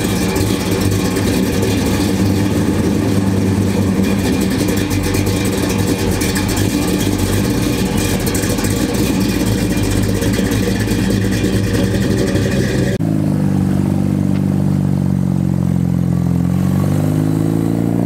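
Chevrolet Chevelle SS convertible's V8 rumbling as it drives past. About thirteen seconds in the sound cuts to another car's engine, its pitch dipping and then climbing again.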